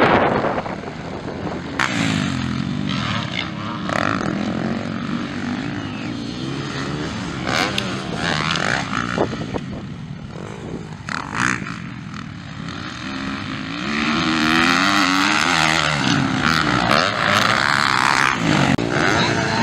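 Several motocross bikes racing by on a dirt track, their engines revving up and down through the gears. The engines get louder about two-thirds of the way through.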